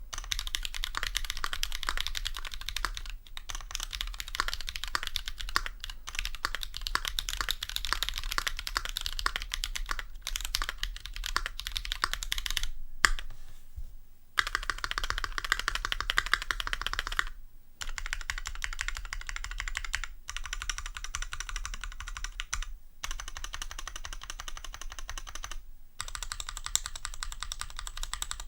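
Keychron Q2 gasket-mount mechanical keyboard with Drop Holy Panda tactile switches lubed with Tribosys 3203 and lubed stabilizers, typed on quickly and continuously. The typing stops briefly a few times.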